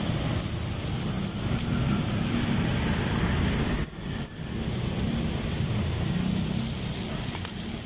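Steady road traffic noise from passing cars and motorbikes. The background changes abruptly about four seconds in.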